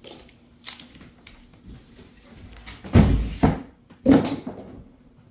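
Handling of a cardboard shipping box as its plastic locking clips are squeezed and pulled out: a few light clicks, then two louder knocks with cardboard scraping about three and four seconds in.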